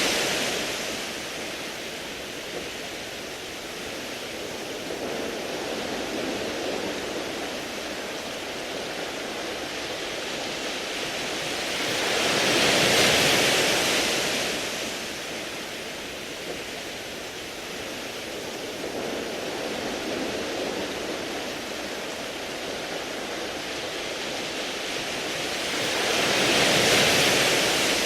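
Sea waves washing up and back over a beach of smooth round pebbles, in slow surges about every fourteen seconds, each swell bringing a bright hiss. Between surges a steady wash of water continues.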